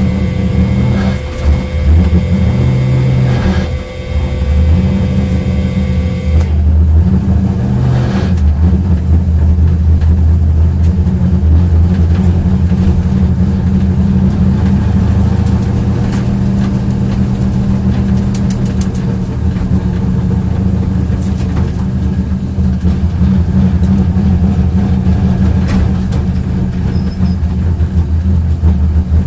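Corvette engine with a misfire running, its pitch shifting in the first few seconds and again around eight seconds in, then holding fairly steady.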